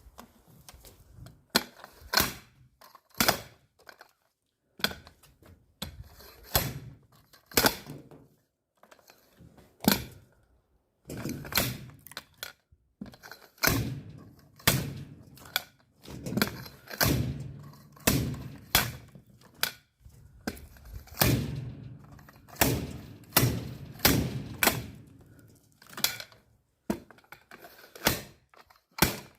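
Axe blows splitting firewood: a long run of sharp wooden thunks, roughly one a second at uneven spacing.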